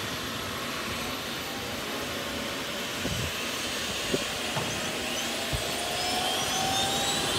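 Eurocopter EC135 trauma helicopter's turbine engine starting up: a steady rushing hiss, with a whine that rises in pitch and grows louder from about halfway through as the engine spools up. A few light knocks are heard alongside.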